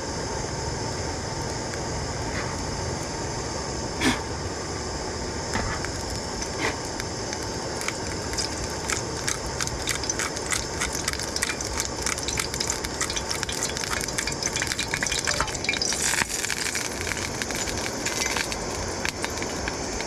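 Cooking oil heating in a pan on a camp burner, starting to crackle and spit, the pops coming thicker from about eight seconds in as the pan gets hot, over a steady hiss.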